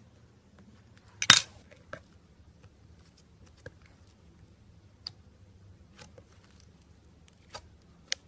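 Small clicks and taps of objects being handled, with one sharp clack about a second in and a few fainter clicks after it.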